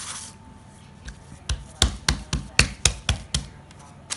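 Biscuit dough being patted flat by hand on baking paper on a kitchen benchtop: a quick run of about eight knocks, roughly four a second, in the middle, with baking paper rustling at the start and end.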